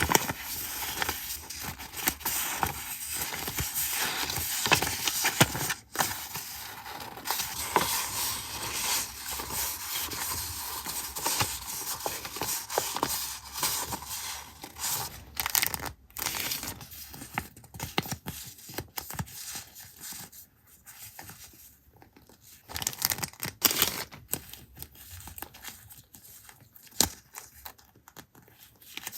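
Paper being handled close up: crinkling, rustling and tearing with sharp clicks and taps, busy through the first half and sparser, separate clicks later.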